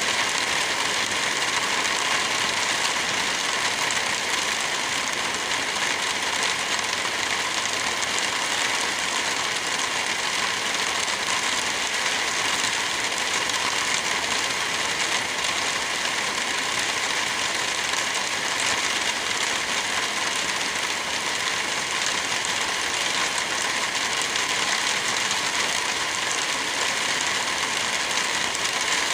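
Wind rushing through forest trees with light rain, a steady hiss that holds the same level throughout without gusts or lulls.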